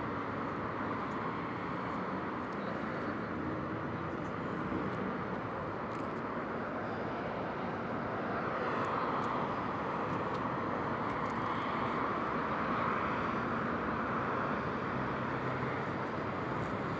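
Steady hum of road traffic on a city street, swelling a little about halfway through.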